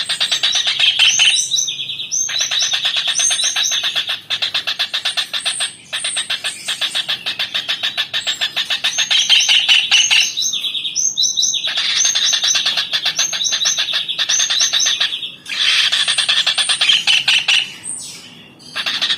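A tengkek udang, a small kingfisher, calling in a high, rapid chattering trill: long runs of fast repeated notes broken by short pauses several times.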